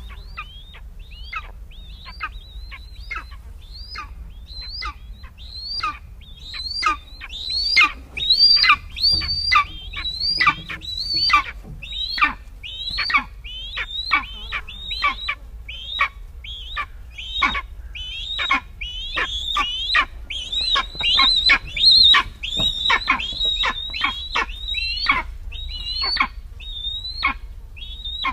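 Eastern imperial eagle calling: a long series of short, sharp notes, about one or two a second, each dropping steeply from a high pitch, over a steady low rumble.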